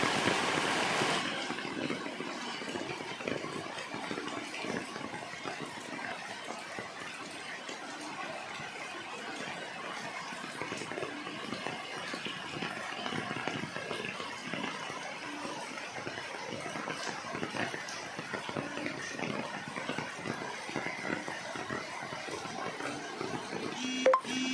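Steady rain falling on golden pothos leaves, an even hiss of many small drops. A short sharp click just before the end.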